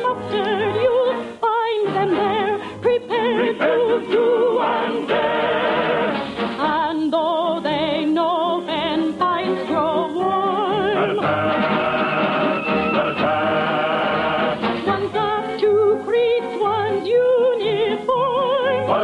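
An operetta song in progress: singers with strong vibrato over an orchestra, some chords held for several seconds partway through. The sound is thin and narrow-band, as on an old radio transcription.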